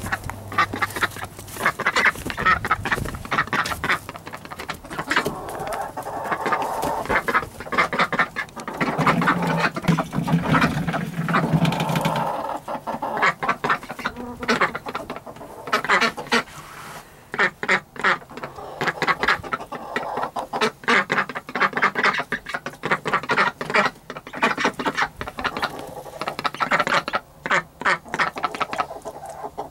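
Domestic ducks quacking, over and over in runs of short calls with brief pauses between them.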